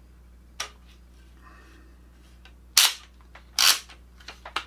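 Sig Sauer Cross rifle stock's length-of-pull adjustment being worked: a few sharp clicks, two loud ones about three seconds in, then smaller ticks near the end.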